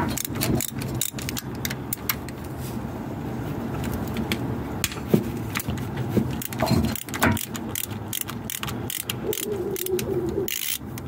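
Socket ratchet clicking in short, irregular runs as it loosens the 14 mm bolts of a car's lower engine mount, over a steady low hum.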